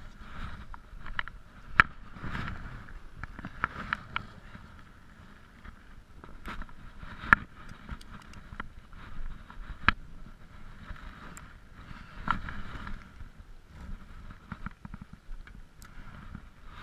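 Muffled handling noise heard through a GoPro's sealed waterproof housing: a dull rumble with scattered clicks and knocks as the camera is jostled while fishing line and hook are handled, a few sharper clicks standing out.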